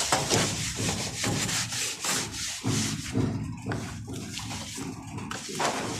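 Rough scraping or rubbing strokes, repeated about three times a second.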